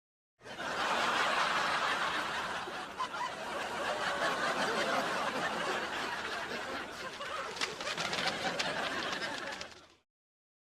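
Sitcom laugh track: a studio audience laughing together, starting about half a second in and dying away near the end. A few sharp clicks come through the laughter shortly before it fades.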